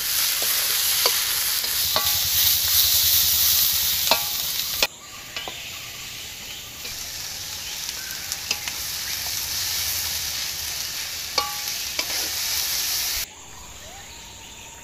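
Sliced onions sizzling in hot oil in a metal kadai, stirred with a spatula that clicks and scrapes against the pan. The sizzle is loud for the first few seconds, then drops suddenly to a quieter frying hiss with scattered clicks, and drops again near the end.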